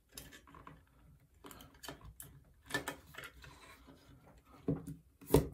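Scattered light clicks and knocks of plastic and metal as a Dyson V6 battery pack's plastic cell holder with its nickel strips is handled and turned over, with a louder knock near the end.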